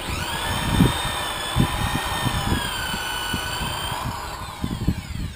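Electric polisher with a foam pad starting up and running with a steady motor whine as it buffs wax on a painted boat hull. About four seconds in it is switched off and its whine falls in pitch as it winds down.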